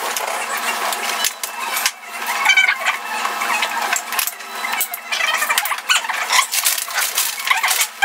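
Hard plastic parts of a baby swing clicking and knocking together as the tubes are fitted and handled, in a run of irregular short clicks.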